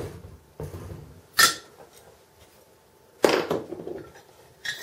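Diecast metal boom sections of a 1/50 scale model crane clinking and knocking together as they are handled, four separate knocks, the loudest about three seconds in.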